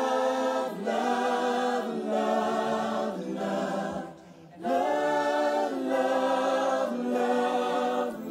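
A choir singing long held chords that change about once a second, with a short break about four seconds in.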